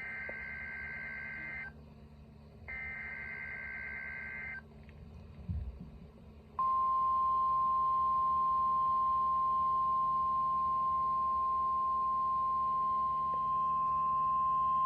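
Emergency Alert System header: two short bursts of harsh, warbling data tones, the SAME header code, followed by a long, steady single-pitch weather-radio attention tone of about nine seconds. These signal the start of a National Weather Service alert.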